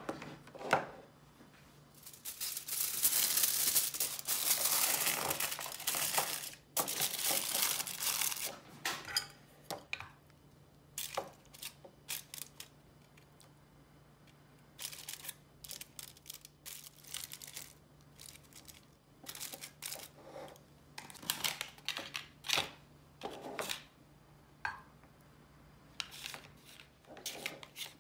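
Aluminium foil cups crinkling as they are pressed and shaped into a plastic bento box, loudest from about two to eight seconds in, followed by scattered light clicks and rustles as food is set into the containers.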